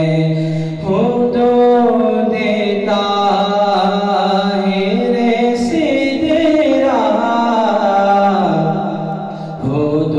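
Men's voices singing an Urdu naat unaccompanied, with long held notes that slide between pitches and a brief breath break about a second in and again near the end.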